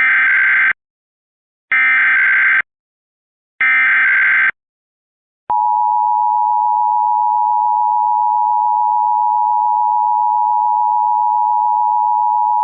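Emergency Alert System SAME header: three short bursts of digital data tones, about a second each with a second's pause between. About five and a half seconds in, the steady two-tone EAS attention signal (853 and 960 Hz) starts and holds. Together they open a required monthly test alert.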